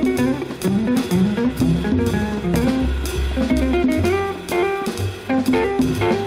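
Instrumental background music: a jazzy track with guitar over a walking bass line and a drum kit.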